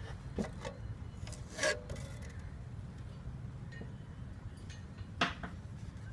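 A few scattered sharp knocks and clicks, like hard objects being handled, over a low steady hum.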